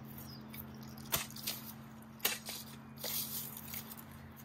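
Hand cultivator's tines digging into rocky soil around a blackberry root ball: a handful of short scrapes and cracks, the strongest about a second and about two seconds in, over a faint steady hum.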